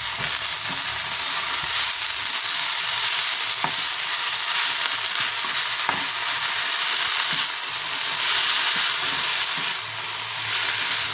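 Mint leaves, dried red chillies, garlic and ginger sizzling in hot oil in a metal kadai while being stirred with a perforated metal spatula: a steady frying hiss with a few light taps of the spatula on the pan.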